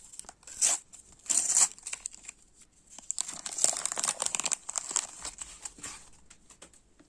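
Panini sticker packet being torn open, its wrapper crinkling: short rustles in the first two seconds, then a longer stretch of crackly crinkling in the middle.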